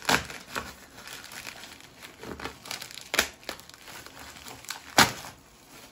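Packaging crinkling and tearing as a parcel is unwrapped by hand, with irregular crackles and a few sharp snaps, the loudest about five seconds in.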